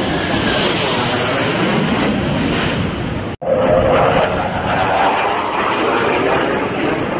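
Loud, steady jet engine noise from a fighter jet flying overhead. It drops out suddenly for an instant about halfway through, then carries on.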